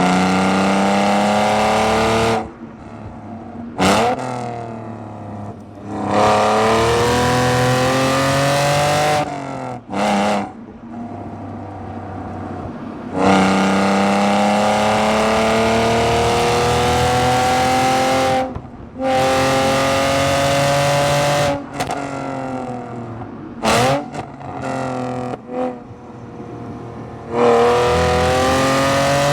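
BMW E46 exhaust, recorded right at the tailpipe, running loud through several long accelerating pulls with the pitch rising in each. Each pull cuts off abruptly into a quieter stretch, with short throttle blips in between.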